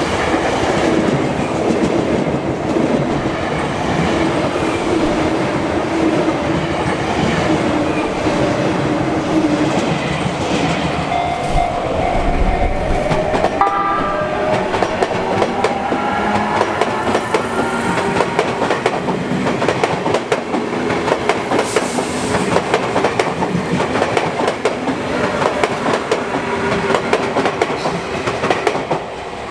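Sotetsu Line electric train running over the level crossing, wheels clacking over the rail joints, with its horn sounded. A whine rises in pitch through the second half.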